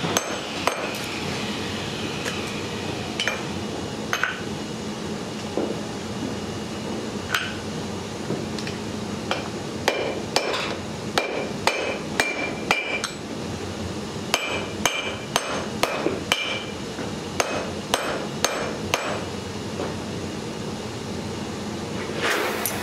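Hammer striking metal in irregular blows, some leaving a short high metallic ring. The blows come most thickly in the middle, over a steady background noise with a faint low hum.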